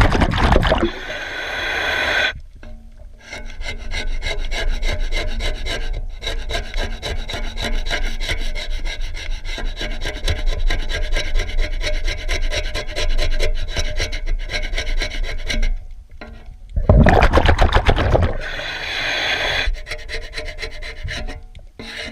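Rapid rubbing and scraping of a brush or scraper on a boat hull, in quick continuous strokes. Loud rushing noise near the start and again about two-thirds through.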